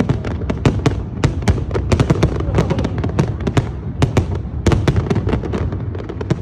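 Display fireworks going off in rapid succession: a dense stream of sharp bangs and crackles, several a second, over a continuous low rumble.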